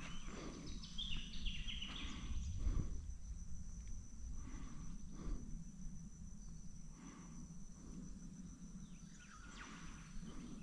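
Outdoor lakeside ambience: a steady high-pitched insect drone, with irregular soft rustles and thumps.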